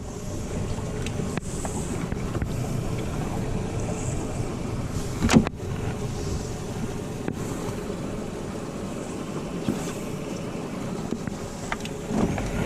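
Boat motor running steadily as the boat moves across the water, with one sharp knock about five seconds in.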